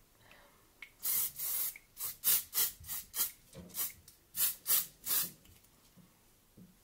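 Aerosol hairspray can spraying: one longer hiss about a second in, then about ten short, quick hisses, roughly three a second, stopping after about five seconds.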